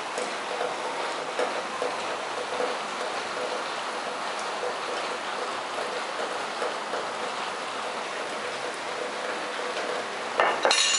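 Squid stir-fry sizzling steadily in a pot over a gas flame as sauce is spooned in. A short clatter of a spoon against the pot comes near the end.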